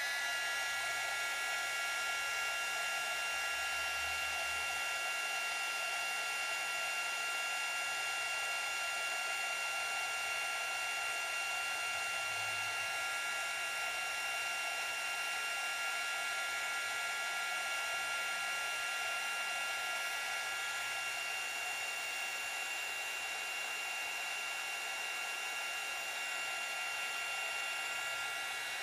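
Heat gun blowing steadily: an even rush of air with a high whine over it, as it heats low-temperature solder to join rhinestone chain to a jump ring.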